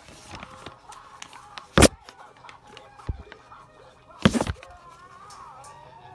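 Two loud thumps, the first about two seconds in and the second, slightly longer, about two and a half seconds later.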